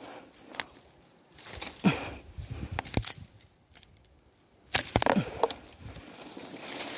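Thin bamboo stems creaking, knocking and cracking, with dry leaves and branches rustling, as a man climbs through a bamboo clump. The louder cracks and knocks come about two seconds in and again around five seconds in.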